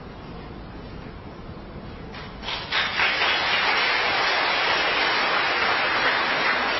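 A hush at the end of a musical number, then audience applause breaking out about two seconds in: a few scattered claps that quickly swell into a full, steady round of clapping.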